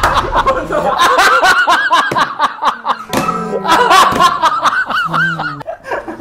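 Several young men laughing hard, with music playing underneath.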